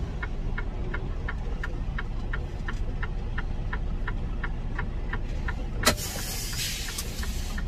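Semi truck's diesel engine idling with a steady light ticking about three times a second. About six seconds in, a sharp hiss of air from the truck's air system lasts about a second.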